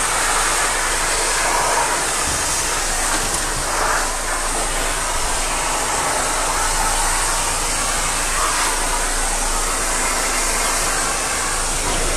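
Self-service dog-wash blower dryer running steadily, its nozzle pressed into a wet dog's fur: an even, unbroken rush of air with a strong hiss.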